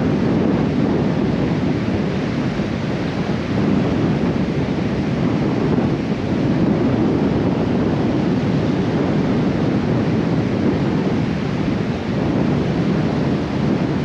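Steady wind buffeting the microphone over the wash of surf on a beach.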